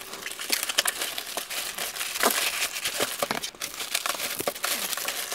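Clear plastic stretch wrap and plastic bag crinkling and rustling as they are pulled and handled, with many small crackles throughout.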